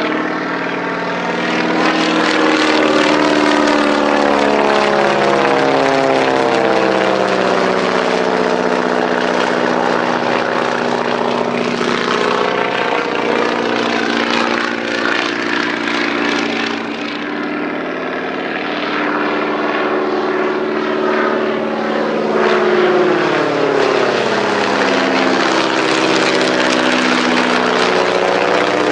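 Boeing Stearman biplane's radial engine and propeller droning as it flies past, the pitch sliding up and down several times as it passes.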